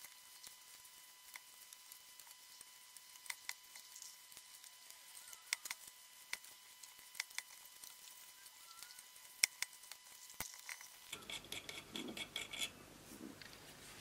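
Scattered small metal clicks and taps from locking pliers working a vintage petrol lighter part clamped in a bench vise. About eleven seconds in comes a denser second or two of metallic rattling and scraping.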